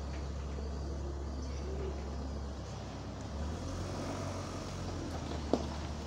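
Low steady rumble of a motor vehicle engine or road traffic, its pitch shifting slightly about halfway through, with one sharp click near the end.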